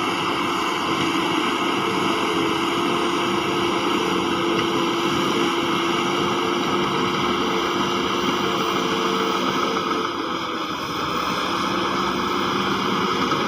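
Heavy earthmoving machinery's diesel engine running steadily under load, with a constant hum over a broad noise and a slight dip in level about ten seconds in.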